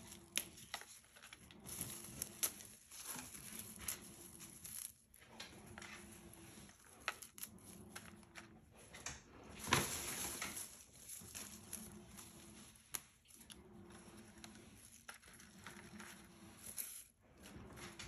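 Leaves, petals and flower stems rustling and crinkling as they are handled and laid out on paper, with scattered small clicks. There is a longer, louder rustle about ten seconds in.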